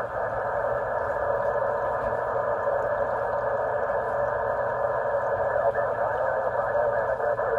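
Static hiss from a CB radio's speaker, squelch open, after unkeying the microphone: a steady, narrow, tinny band of noise with no clear signal coming through while the operator listens for a skip reply.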